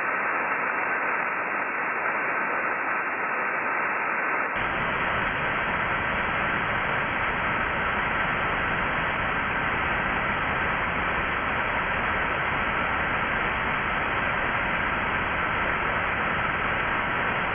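Steady SSB receiver hiss from an Icom IC-9700 tuned to a linear satellite's downlink with no station transmitting. The hiss gets fuller and deeper about four and a half seconds in.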